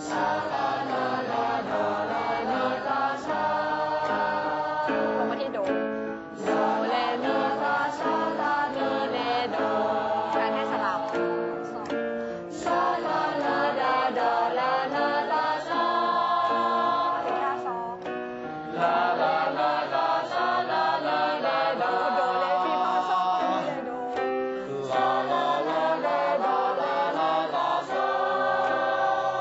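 A mixed group of young women and men singing a two-part vocal warm-up, the women's and men's lines sung against each other in unison groups. It comes in phrases of about six seconds with short breaks between them.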